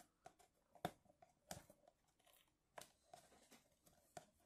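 Fingernail picking and scratching at the clear tape seal on a cardboard figure box: a handful of faint, sharp clicks and scrapes spread about a second apart.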